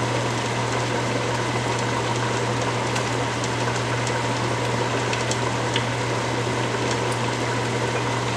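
Large stainless stockpot of meat boiling hard: a steady rushing, bubbling noise with a low hum beneath it and a few faint ticks.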